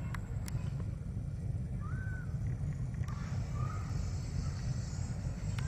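Distant BR ALCO 6504 diesel-electric locomotive running, a steady low rumble as the train approaches, with a few short bird calls over it, one about two seconds in and another a little after three seconds.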